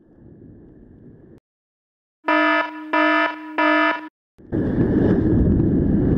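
Three loud buzzy beeps about half a second each, starting just past two seconds in after a brief drop to dead silence. Then a loud steady rush of wind noise on the microphone as the motorcycle rides off.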